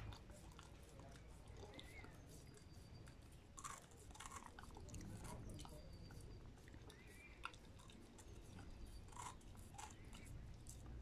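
A dog licking and biting at an ice lolly: faint, irregular wet licking, smacking and chewing clicks.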